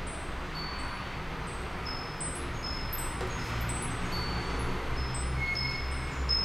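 Short, high ringing tones at scattered pitches, one after another, over a steady low rumble of background noise.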